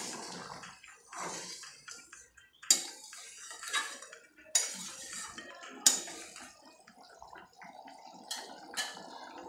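Metal spatula stirring a boiling chickpea and potato curry in a metal pan, scraping and knocking against the pan with about six sharp clacks, the loudest near the start and middle. The curry bubbles steadily underneath.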